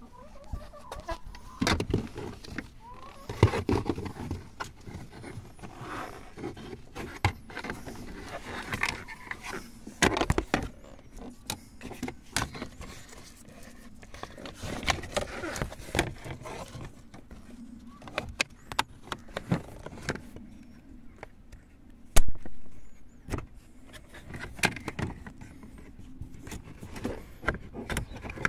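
Hand work on car interior parts: irregular clicks, knocks, scraping and plastic squeaks, with one sharp loud click about 22 seconds in.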